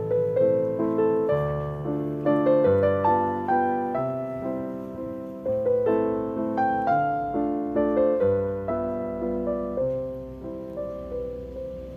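Background music: a gentle solo piano melody, notes struck a few times a second and left to ring.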